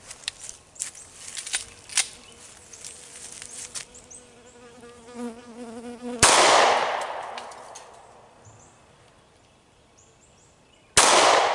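Two shots from a Taurus G2C pistol about five seconds apart, each a sharp crack followed by an echo that dies away over a couple of seconds. Before the first shot there are a few small clicks as the pistol is handled and a bee buzzing close by.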